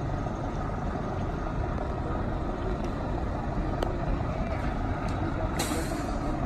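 Steady low rumble of a large engine running, with a few sharp cracks and a short hiss about five and a half seconds in.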